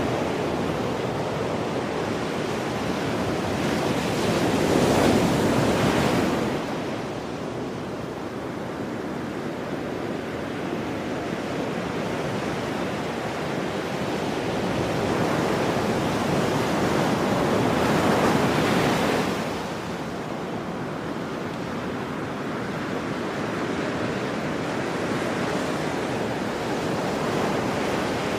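Ocean surf: a continuous wash of breaking waves and churning foam, swelling louder twice, about five seconds in and again around eighteen seconds, each swell falling away quickly.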